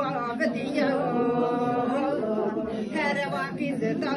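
A woman singing a funeral lament solo and unaccompanied, with long held notes.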